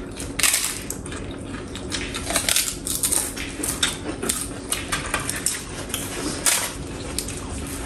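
Spoon or fork clinking and scraping against a plate during a meal: many short, irregular taps and scrapes.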